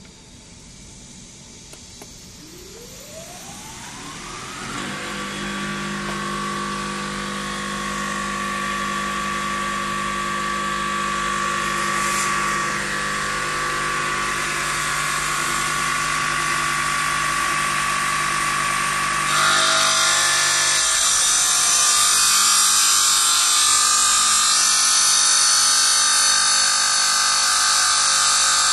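Jinan Ganger CNC 4-axis stone bridge saw's blade motor spinning up, its whine rising over a couple of seconds and settling into a steady hum. About two-thirds of the way through it gets louder, with a harsh high grinding hiss as the blade cuts into the stone.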